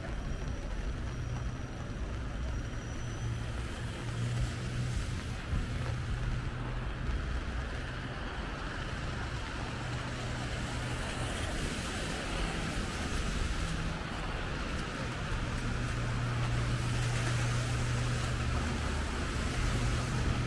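City street traffic on wet roads: car engines running with a low hum and tyres hissing on the wet pavement, growing somewhat louder in the second half.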